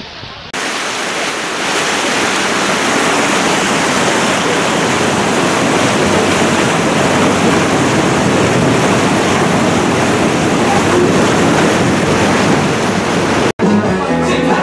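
Loud, steady rushing of churning water in a passenger boat's wake, starting abruptly just after the beginning. It cuts off sharply about a second before the end, giving way to music.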